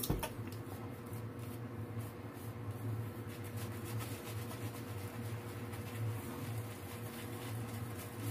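Shaving brush swirling lather over a stubbled face: a soft, scratchy brushing in repeated strokes, over a steady low hum.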